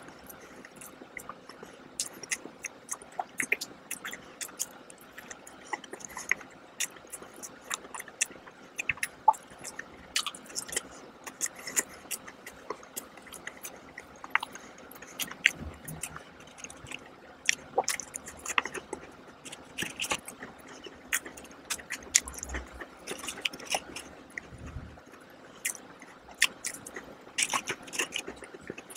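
Close-miked chewing and mouth sounds of someone eating a frosted donut: irregular small wet clicks and smacks, several a second.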